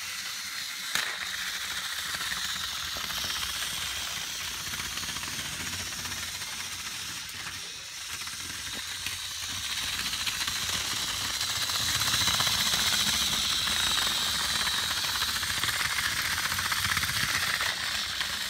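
Battery-powered TOMY Trackmaster toy locomotives running against each other in a pulling contest on plastic track: their small electric motors and gears give a steady high whir. There is a sharp click about a second in, and the whir grows louder from about ten seconds in.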